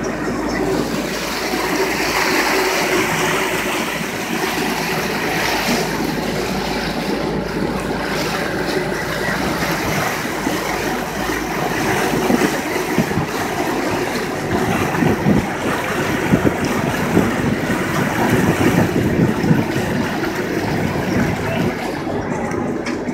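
Motorboat engines running with water rushing and slapping against the hull. The splashing turns choppier and more irregular from about halfway through.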